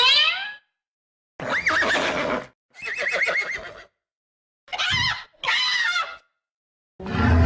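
Horse whinnying: six separate neighs, one after another, each wavering and falling in pitch and cut off abruptly with silence in between, as with a string of sound-effect clips.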